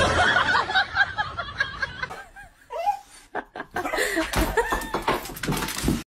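People laughing in quick, choppy bursts, densest in the first two seconds, then mixed broken sound up to a sudden cut.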